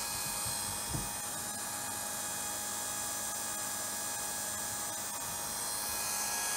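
SeaStar Power Purge Junior electric pump running steadily with a hum and whine, pushing oil through the hydraulic steering to bleed the air out. A small knock about a second in.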